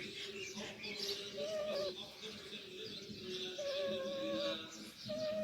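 Birds calling: a wavering call repeats about every second and a half to two seconds, with high chirps over it.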